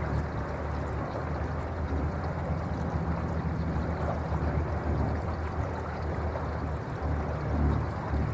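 Water rushing and splashing along the hull of a slowly cruising electric boat, a steady unpitched wash over a low rumble, with no motor whine standing out.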